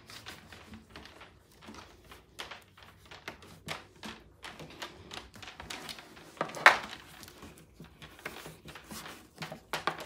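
Handling noise as cord straps are tied on a plastic mannequin: irregular light clicks, taps and rustles, with one louder knock about two-thirds of the way through.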